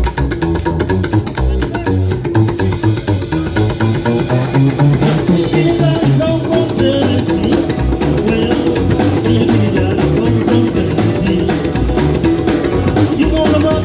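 Band music with guitar and a drum kit playing steadily.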